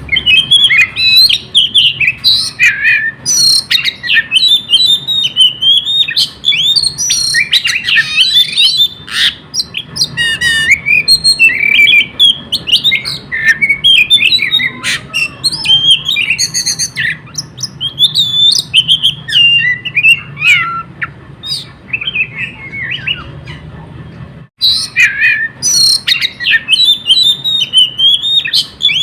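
An oriental magpie-robin (kacer) sings without let-up in a rapid, varied stream of whistles, chirps and harsh notes, with a few sharp clicks among them. This is the excited, nonstop 'konslet' singing that kacer keepers prize. The song eases off briefly a little after twenty seconds in, then resumes.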